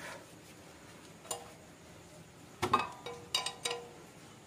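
Metal tools and motorcycle parts clinking and knocking: about five sharp metallic strikes, the loudest about two and a half seconds in, several leaving a brief ringing tone.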